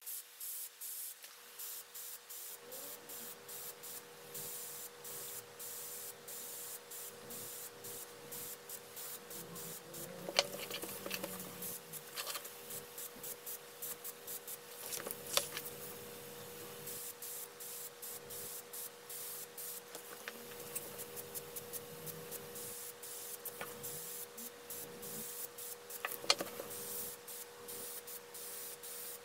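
Gravity-feed airbrush hissing in many short bursts as the trigger is pressed and released, over a steady hum. A few sharp clicks stand out.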